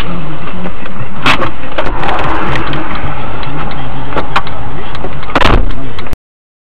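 Car driving noise picked up by a dash camera mic inside the car, loud and dense, with a couple of sharp knocks. It cuts off suddenly near the end.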